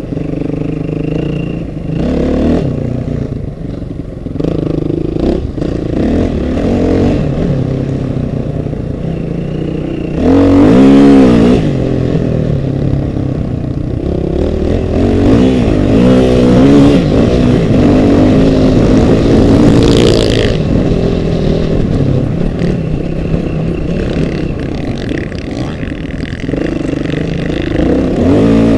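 Off-road vehicle engine running and revving in repeated surges, its pitch rising and falling, with short bursts of rushing noise about ten and twenty seconds in.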